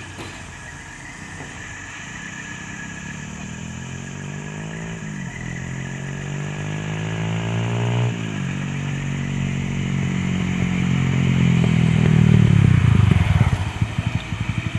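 Diesel engine of a Mitsubishi Fuso tanker truck pulling uphill. Its pitch climbs, then drops at gear changes about five and eight seconds in. It grows louder as the truck approaches and is loudest as it passes near the end.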